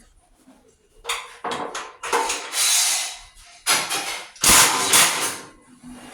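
Metal tools and hardware clattering and knocking, in a few short bursts and then two longer runs of rattling about two and four seconds in.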